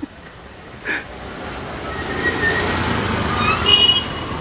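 Street traffic noise that grows louder over the second half, with a brief high tone near the end. A single click about a second in.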